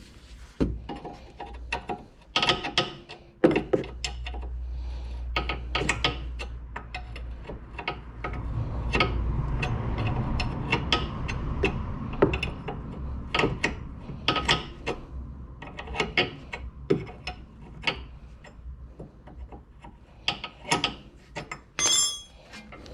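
Hand tools working a stuck brake caliper bolt: irregular metallic clicks and knocks of a wrench and ratchet. There is a low rumble for several seconds in the first half.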